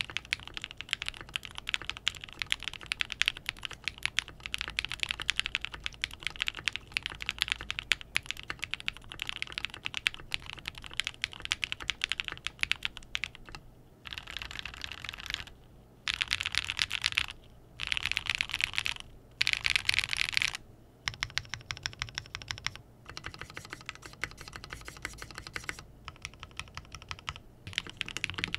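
Steady typing on a Float65 steel-case mechanical keyboard with Gateron Lunar Probe linear switches, an FR4 plate, no foam and GMK keycaps, first on a deskmat. In the middle comes a stretch of loud, choppy dense noise in short blocks, and then the typing goes on with lighter, sparser clacks as the keyboard sits on a bare wooden desk.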